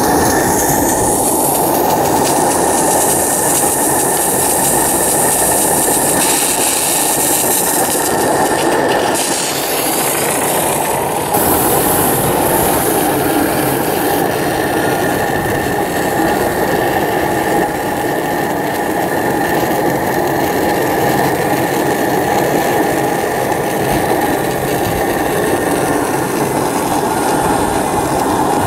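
Live-steam model truck running under steam: a steady, loud hissing noise from its steam plant.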